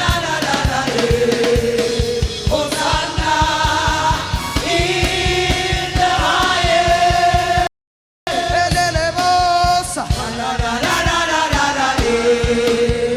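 Gospel worship music: voices singing long held notes over a steady drum beat. The sound cuts out completely for about half a second some eight seconds in.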